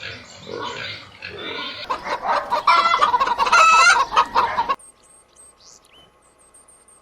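Chickens calling in a rapid string of clucks that grows louder partway through, then cuts off suddenly about two-thirds of the way in. A few faint, high bird chirps follow.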